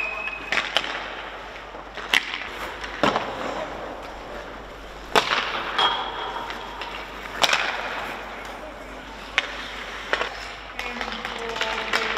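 Ice-hockey sticks slapping pucks on the ice in shooting practice: a sharp crack every one to two seconds, irregularly spaced, with faint voices near the end.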